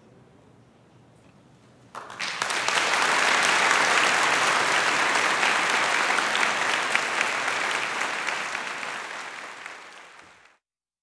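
Audience applauding, starting suddenly about two seconds in, dense clapping that fades away near the end and then cuts off.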